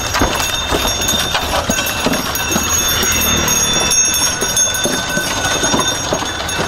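Bullock carts rolling along a paved road: wooden spoked wheels rumbling and rattling, bullocks' hooves clopping irregularly, and bells ringing steadily over the top.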